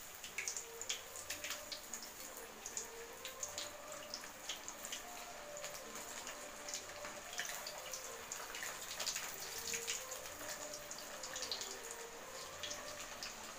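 Masala-coated fish pieces deep-frying in a kadai of hot oil: a steady sizzle full of small, quick crackles and pops.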